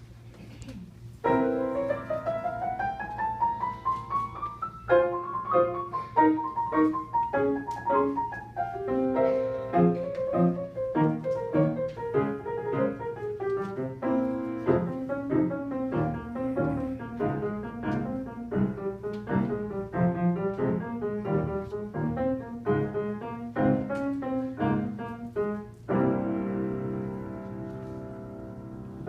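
Piano music. It starts about a second in with a rising line, moves into a melody of separate notes over chords, and ends on a held chord that slowly dies away.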